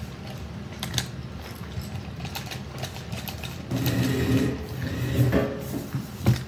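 Small plastic gear mechanisms of Sharper Image Robot Combat toy fighting robots clicking and whirring as the robots are moved by hand, louder for a couple of seconds after about four seconds in.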